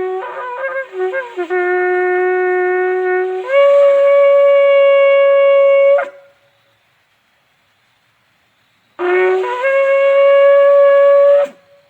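Shofar blown in two long blasts. Each starts on a low note and breaks up to a higher held note, which cuts off sharply. The first blast wavers and sputters at the start before it settles, as the player is still practising.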